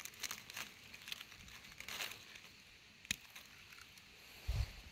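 Faint crackling and rustling of dry leaf litter as fingers pull a red Russula mushroom from the forest floor, with a sharp snap about three seconds in and a dull thump near the end.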